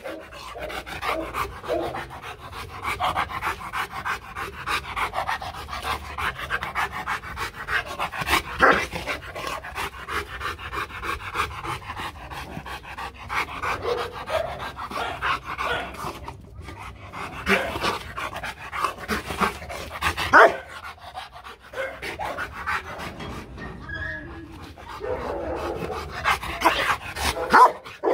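Rottweiler panting hard in play, broken by a few loud, short barks: demanding, attention-seeking barks for a ball, not threat barks.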